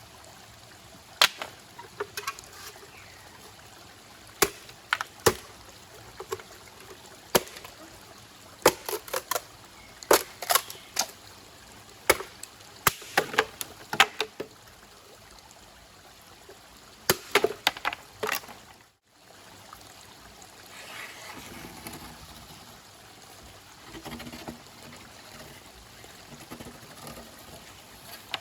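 Irregular sharp clicks and knocks, some in quick clusters, over the steady rush of running water; they stop about two-thirds of the way in, leaving the water sound.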